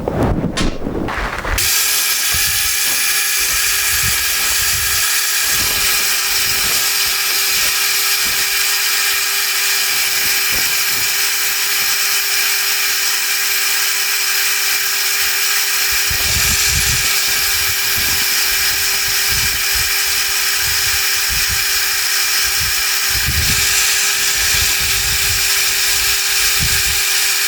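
Milling machine spindle starting up about a second and a half in and running at a steady pitch, spinning an edge finder to locate the centre of a steel workpiece, with scattered low knocks.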